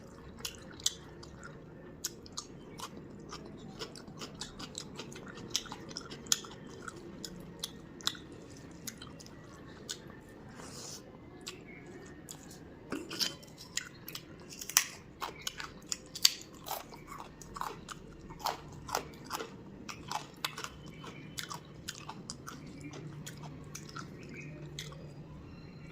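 Close-up chewing and biting of food, with many sharp, wet mouth clicks and crunchy bites that grow busier and louder from about halfway through.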